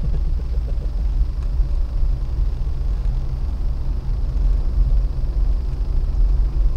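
Car engine and tyre noise heard inside the cabin while driving: a steady low drone.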